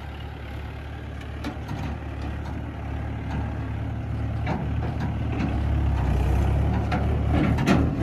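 Mahindra 575 tractor's diesel engine pulling a loaded trailer away, running steadily and growing louder, with a few sharp rattles near the end.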